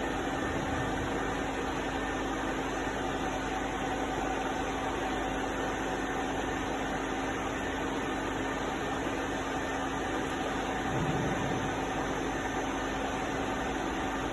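Deckel FP4A milling machine running, a steady motor hum with a constant low tone and a higher whine under an even mechanical noise.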